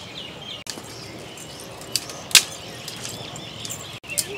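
A few sharp cracks of dry twigs as a small fire of twigs and dry leaves is fed, the loudest about halfway through, with birds chirping behind.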